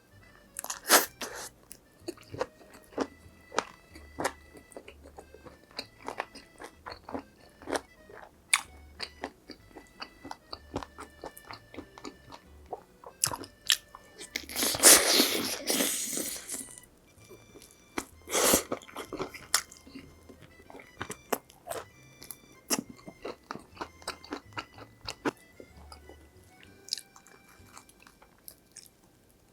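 Close-miked crunching and chewing of crispy fried food, with many sharp crunches and a longer, louder run of crunching near the middle. Soft background music with a steady beat plays underneath.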